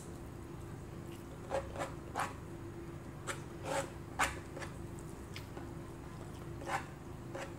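Close-up mouth sounds of eating rice and milkfish by hand: chewing with wet lip smacks, about ten short clicks spread irregularly over a steady low hum.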